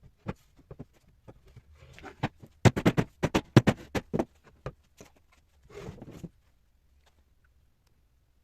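Workshop handling of wooden chair parts: a quick run of sharp knocks and clicks about two and a half seconds in, lasting about two seconds, with brief scraping or rustling just before and about a second after.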